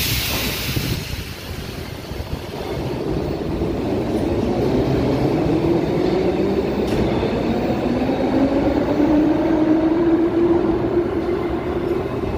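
Ezh-3 metro train pulling out of a station, with a short hiss at the start. Then the wheels rumble and a motor whine rises slightly in pitch and grows louder as the train gathers speed.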